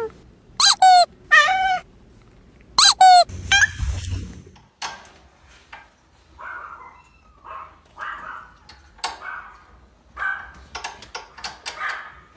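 A dog giving short, high-pitched yips, about six in the first four seconds, each falling in pitch, followed by scattered clicks and scuffling.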